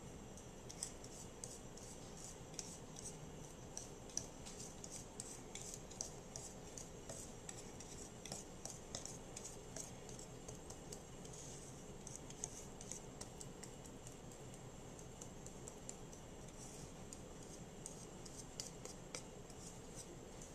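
Faint, irregular light clicking and ticking of small hard objects knocking together, a few clicks a second with pauses, some sharper than others.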